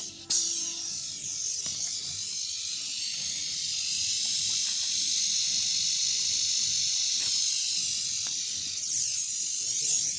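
Steady, loud hiss of compressed air blowing out of a homemade air compressor built from an old refrigerator compressor; it starts abruptly and holds even.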